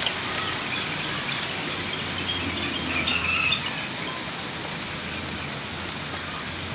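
Steady, rain-like hiss of background noise with faint high chirps in the middle and a few small sharp clicks near the end.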